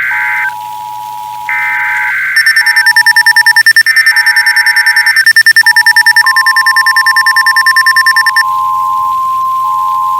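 NOAA Weather Radio emergency alert sequence: repeated buzzy SAME digital header bursts, with an on-off beeping tone and a fast, high-pitched pulsing beep of a weather radio receiver's alarm over them. About six seconds in, the steady Weather Radio warning alert tone begins, signalling an incoming warning.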